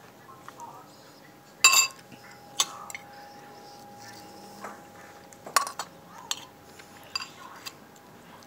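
A spoon clinking against a soup bowl as someone eats, several sharp ringing taps with the loudest about two seconds in and a quick cluster a little past halfway.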